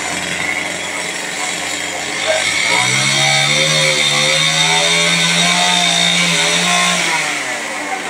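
Chainsaw running, speeding up to high revs about two seconds in and held there for about five seconds before dropping back near the end.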